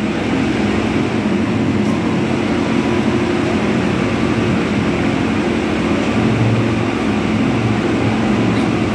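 A steady, unbroken mechanical hum and rumble that does not change.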